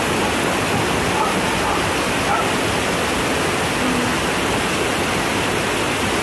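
Muddy floodwater rushing down a steep street in heavy rain: a steady, loud rush of water.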